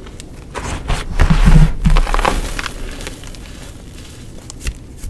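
Block of gym chalk being crushed and crumbled. A dense spell of crunching and crackling comes about one to two and a half seconds in, then fades to softer crumbling with a couple of sharp crackles near the end.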